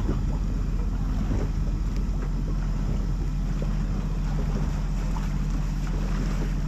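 A steady low hum, like a running engine, with wind buffeting the microphone and a few faint knocks.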